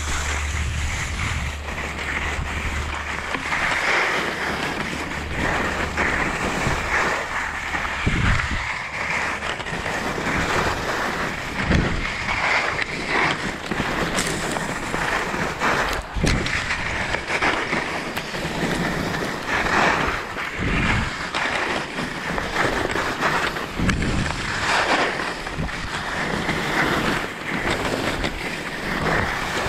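Alpine skis scraping and chattering through chopped-up, tracked snow on a downhill run, the hiss swelling and easing with each turn, with wind buffeting the microphone.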